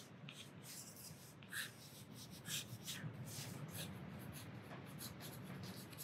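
Faint scratching of a black watercolour pencil drawing a line on watercolour paper, in short strokes.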